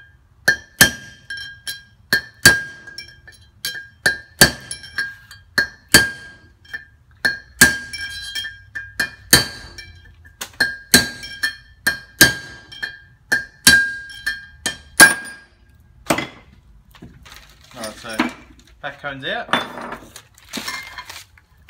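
Hammer blows driving an old wheel-bearing race out of a Toyota LandCruiser front hub with its brake disc attached. The sharp metal strikes ring out, come about one or two a second at an uneven pace, and stop about 15 seconds in, when the race is out.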